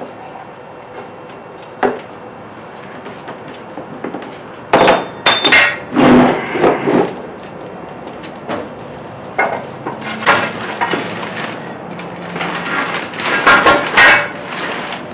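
Metal parts and hand tools knocking and clanking as engine head components are handled, in scattered bursts with two busier clusters partway through and near the end.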